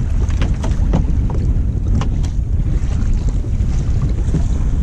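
Wind buffeting the camera's microphone as a loud, steady low rumble, with small splashes and slaps of choppy sea water against the plastic kayak's hull.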